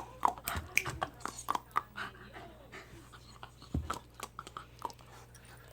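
Dog panting, with scattered short clicks and a soft low thump about four seconds in.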